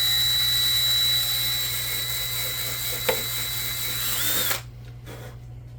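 Power drill with a 1/8-inch bit running with a steady whine as it drills a new hole through a skate boot beside the stripped buckle-bolt hole. It cuts off about four and a half seconds in.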